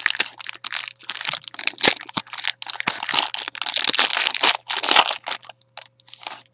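Foil wrapper of an Adrenalyn XL World Cup 2014 trading-card booster pack crinkling and tearing as it is ripped open and the cards are worked out of it. It is a dense run of crackling rustles that eases off about five seconds in.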